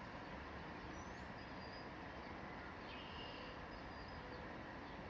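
Faint steady background noise with a few faint, short high chirps.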